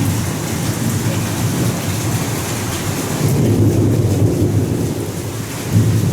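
Heavy downpour hissing steadily with low rolling thunder, the rumble swelling about three seconds in and again near the end.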